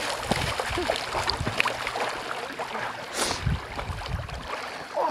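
Lake water splashing and sloshing around a swimmer's strokes, with a brief louder splash about three seconds in and low wind rumbles on the microphone.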